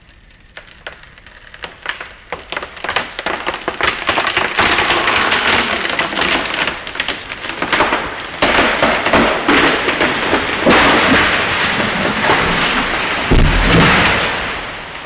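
Heavy rain, a dense hiss full of small crackling ticks that builds up over the first few seconds, with a deep rumble of thunder about thirteen seconds in.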